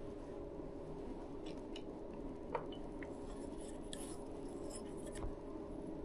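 Light clicks and taps of tableware being handled, a lacquered soup bowl and chopsticks, scattered through the middle, over a steady faint room hum.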